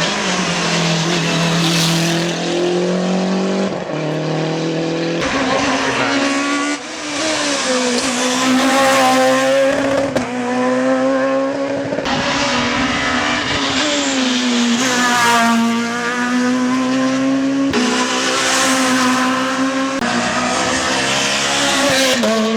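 Rally cars under hard throttle, engines revving up and falling back through gear changes, with tyre squeal. The engine note changes abruptly several times, as one car gives way to the next.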